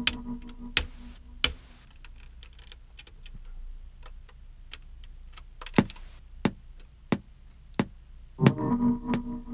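Metronome click of an Akai MPC 1000 ticking at an even pace, about 0.7 s between clicks, with the sampled loop stopped. About 8.5 s in, the loop starts again on the next beat, in time with the clicks.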